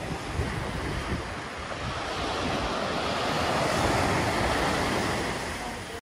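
Waves washing on a shore: a steady rushing surf that swells a little about four seconds in and cuts off at the very end.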